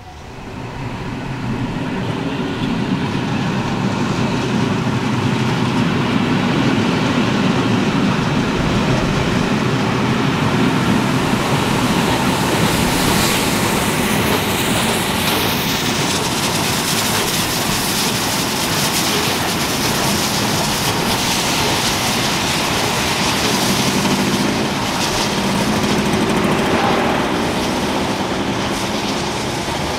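A train passing close by: a loud, steady rolling clatter of wheels on rails that swells in over the first two seconds and keeps on as the carriages roll past. A faint high falling whine comes about halfway through.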